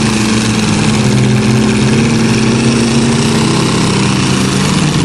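Several engines running hard together under full load, a school bus and a line of cars and pickups pushing against each other, with their tires spinning in the dirt. The engine note stays steady throughout.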